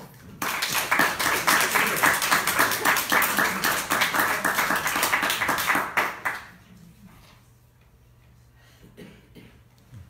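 Audience applauding: a dense run of handclaps that starts about half a second in and dies away after about six seconds.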